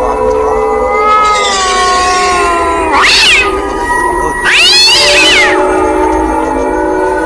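A cat meowing twice, a short call about three seconds in and a longer one about a second later, over steady background music.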